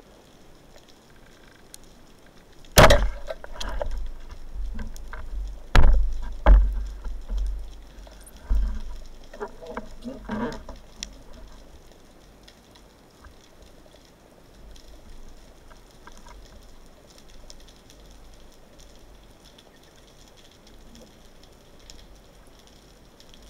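Band-powered speargun fired underwater: a sharp crack about three seconds in, followed by two more sharp knocks and a few seconds of rumbling, clattering movement in the water. After that only faint water noise remains.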